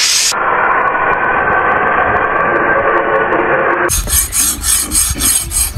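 Steel blades being sharpened by hand: a steady metallic scraping, then, after a break about four seconds in, a file stroked along a blade in a regular rhythm of about four strokes a second.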